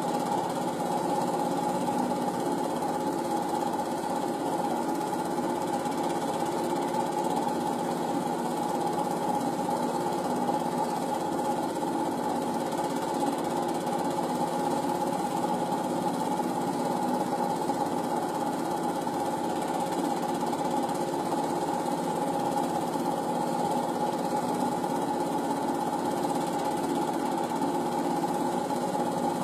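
Home-movie film projector running steadily: a mechanical whirr with several fixed tones and a fast, even rattle from the film transport.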